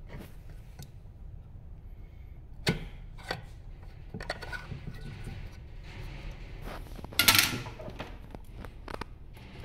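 Plastic clicks and knocks from a touchscreen POS terminal's stand housing being handled and a plastic cover pried off. There is a sharp click about three seconds in and a louder, longer burst of plastic rattling about seven seconds in.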